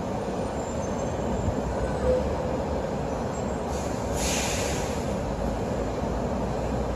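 A stopped Korail Suin-Bundang Line electric train standing on the track, giving a steady low hum and rumble. About four seconds in there is a short hiss lasting about a second.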